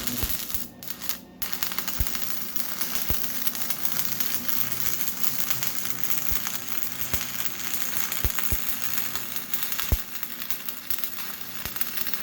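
Electric arc welder crackling and sizzling steadily on steel, with a few sharp pops.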